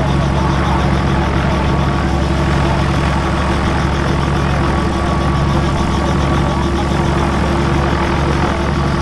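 Robinson R44 Raven II helicopter running steadily on the ground, its Lycoming IO-540 six-cylinder flat engine and main rotor at an even idle with a constant drone.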